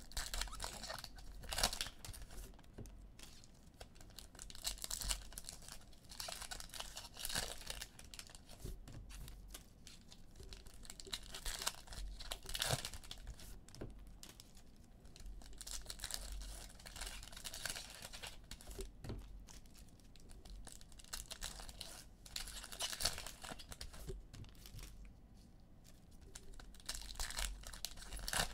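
Foil trading-card packs, NBA Hoops retail, being torn open and their wrappers crinkled, with the cards handled between the hands. This comes as repeated spells of ripping and crinkling.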